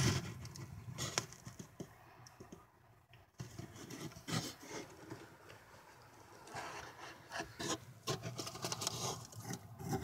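Irregular rubbing and scraping as a phone and hand brush against the wooden underside of a boat deck inside a live well. The sound comes in short rustles and clicks with quieter gaps.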